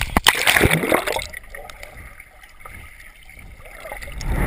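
Swimmer splashing in a pool, heard through a microphone going under the water: about a second of splashing and bubbling, then a quiet, muffled underwater stretch, with sloshing building again near the end.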